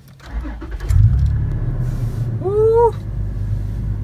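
Toyota FJ Cruiser's 4.0-litre V6 starting: the starter cranks briefly, the engine catches about a second in with a short flare, then settles into a steady idle.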